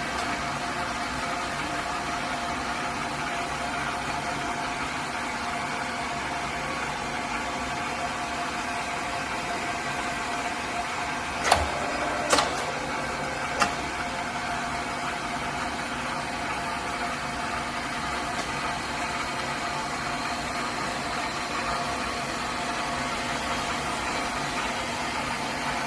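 Motokubo MBG-1 bevel milling machine's motor running steadily with a steady whine, with three sharp knocks about halfway through.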